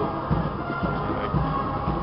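Military band playing a march, with a bass drum beating about twice a second.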